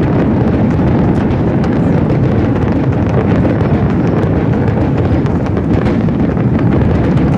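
A rapid barrage of aerial fireworks shells bursting, their booms running together into a continuous rumble, with faint crackling over the top.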